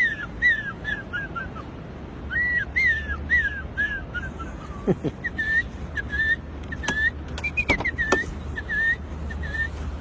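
A man whistling an imitation of birdsong: quick chirps that rise and fall, in three runs with short breaks between them.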